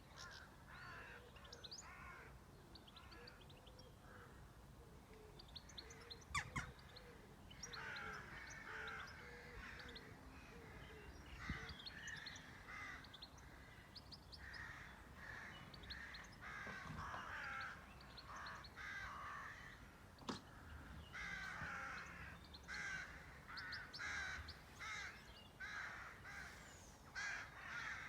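Outdoor birdsong: a run of short, harsh calls repeated in quick series, busier in the second half, with thin, high chirps from smaller birds over them.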